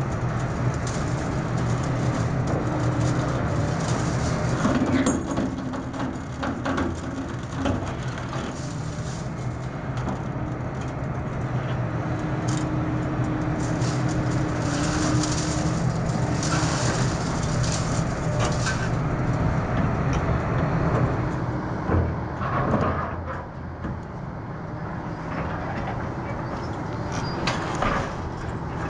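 Link-Belt 330LX excavator's diesel engine running steadily under hydraulic load, while its scrap-shear attachment scrapes, knocks and clanks against scrap steel rebar and plate.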